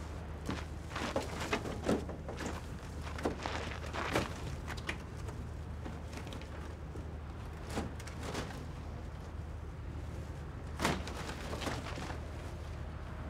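Scattered knocks and rustles, with a steady low hum beneath, as the netted, lit sculpture is handled with ropes and cables.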